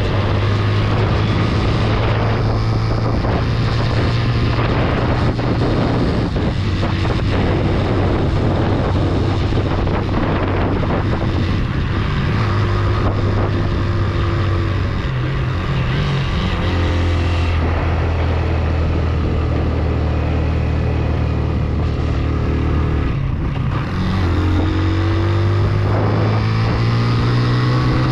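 Motorcycle engine running under load, its pitch shifting with throttle and gear changes and rising steadily near the end, with wind noise on the microphone.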